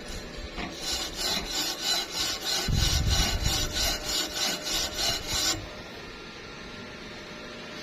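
Rapid back-and-forth scraping strokes of a hand tool on metal, about four or five a second, stopping suddenly about five and a half seconds in; a low rumble runs under the second half of the strokes.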